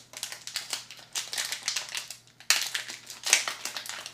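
A foil Pokémon booster pack wrapper crinkling in the hands as it is opened. The crackles come in irregular bursts and get louder a little past halfway.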